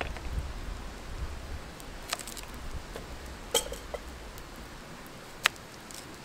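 Kitchen knife slicing a raw carrot on a chopping board: a few separate sharp clicks as the blade cuts through and knocks the board, the loudest about five and a half seconds in.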